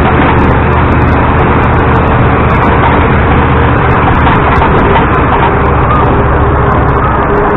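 LiAZ-677M city bus's V8 petrol engine running steadily as the bus drives along, heard from inside the passenger cabin with road noise.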